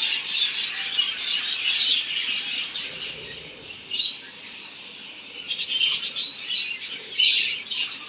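A colony of budgerigars chattering together, a dense high twittering that eases off in the middle and swells again near the end.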